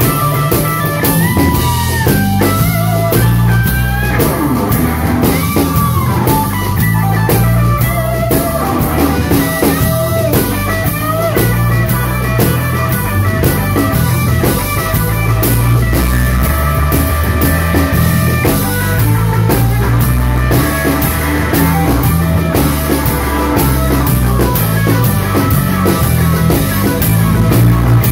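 A live blues band plays an instrumental passage: the electric guitar leads with bent notes over a drum kit keeping a steady beat with cymbals.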